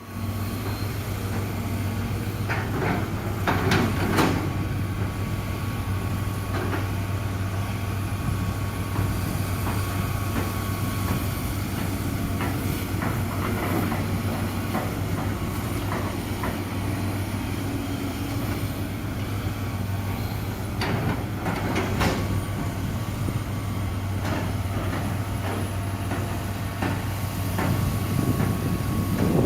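Excavator diesel engine running steadily, with a few sharp metallic clanks and knocks, clustered about three to four seconds in and again about twenty-one seconds in.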